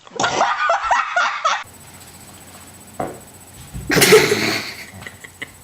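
Laughter, then a loud, rough fart about four seconds in.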